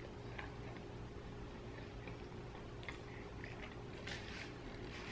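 Soft mouth clicks of someone chewing bread, over a steady low hum. About four seconds in there is a brief soft tearing rustle as the bread roll is pulled apart.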